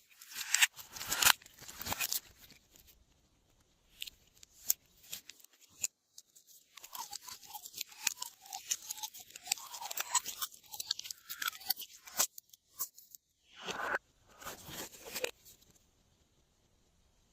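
Glossy slime being handled: squeezed and stretched by hand, giving a run of sticky clicks and crackles, with a patch of small bubbly pops about halfway through.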